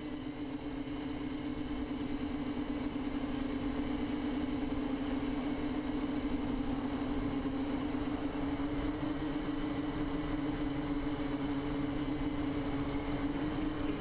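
Multirotor drone's electric motors and propellers humming at a steady pitch, the level rising over the first couple of seconds and then holding.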